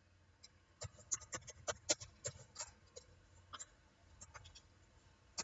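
Computer keyboard typing: a run of faint, irregular key clicks starting about a second in and thinning out near the end.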